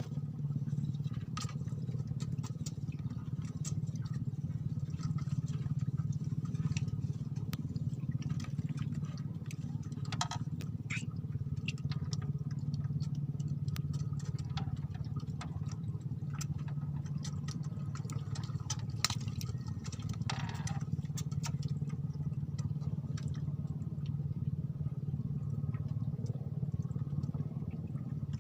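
A small engine running steadily, a constant low hum, with scattered light clicks and knocks over it.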